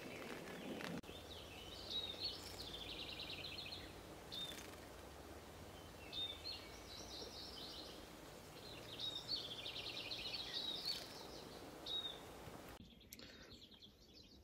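Songbirds singing: a rapid trilled phrase of even notes repeated three times, with short upslurred call notes between, over a steady background hiss.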